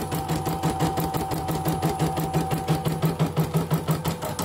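CNY E900 portable embroidery machine stitching on a test run: a rapid, even needle clatter over a steady motor whine.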